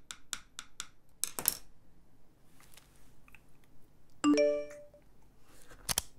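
A run of light clicks and taps in the first second and a half, then about four seconds in a short smartphone notification chime of stacked tones, followed by a couple of sharp clicks near the end.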